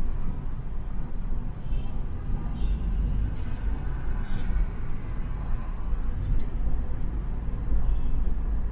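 Steady low rumble of a car driving through city traffic, with road noise and a few faint, brief high-pitched sounds about two to four seconds in.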